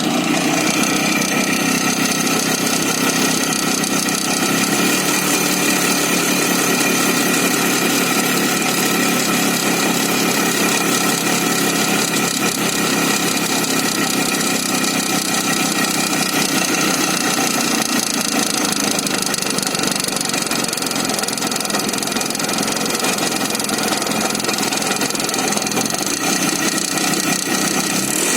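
Izh Jupiter-5 motorcycle's two-stroke twin-cylinder engine idling steadily with a knock in the engine.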